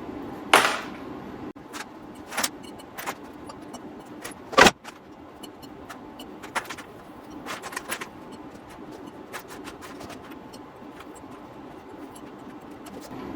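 Scraps of copper tubing clinking as they are dropped into the melt one after another, in irregular metallic clinks with one louder clank about halfway through. A steady hum runs underneath.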